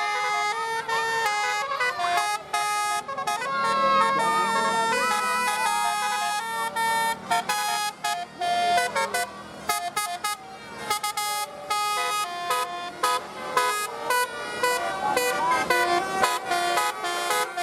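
Bus Basuri telolet horn playing a melody: a long run of held horn notes that step from pitch to pitch every fraction of a second, with sliding wailing notes in the first few seconds.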